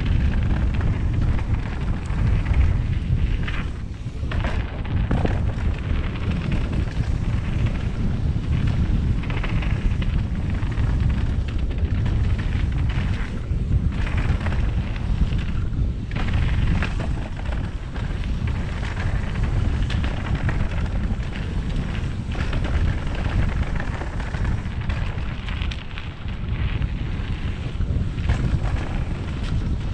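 Mountain bike ridden fast down a dirt trail: a continuous rumble of wind buffeting the camera microphone and tyres on dirt, with frequent knocks and rattles from the bike over rough ground.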